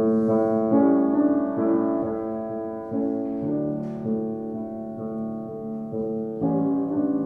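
1887 Blüthner style VIII grand piano, freshly restored with new hammers, played in a slow passage of held chords, each new chord struck and left to ring into the next.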